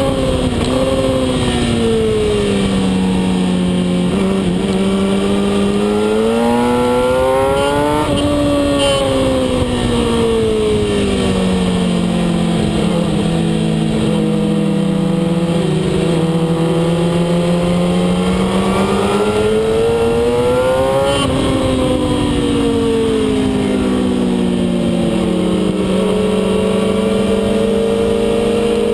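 Kawasaki ZX-10R sport bike's inline-four engine at track speed, heard from the bike itself over rushing wind. Its pitch falls off, climbs, falls and climbs again as the rider brakes for corners and accelerates out, with a sudden drop about 21 seconds in.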